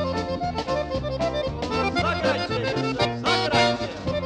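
Polka band playing an instrumental passage led by accordion, with a steady beat.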